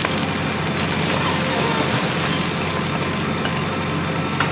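JCB 3DX Plus backhoe loader's diesel engine running steadily.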